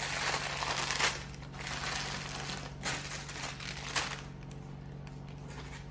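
Packaging being handled: paper or plastic wrapping rustling and crinkling, with a few sharper crackles, dying down after about four seconds.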